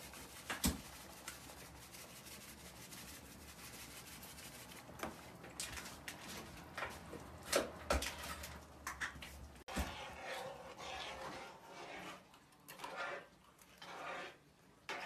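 Kitchen handling sounds: a few sharp knocks of a utensil against a metal pot, then, after a sudden cut, a run of repeated scraping strokes as a spoon works in a small container.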